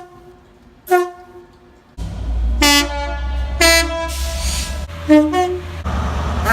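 Short blasts of British train air horns from several clips cut one after another. First come two short toots about a second apart in quiet. Then, over a loud low engine rumble, two horn blasts are followed by a two-note blast.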